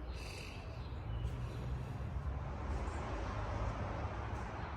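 Steady low background rumble with a faint even hiss over it, and no distinct events.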